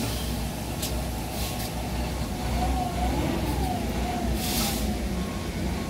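Heavy diesel construction equipment, an excavator and a dump truck, running with a steady low rumble and a few clanks of machinery. Near the end a reversing alarm starts beeping in short, evenly spaced beeps.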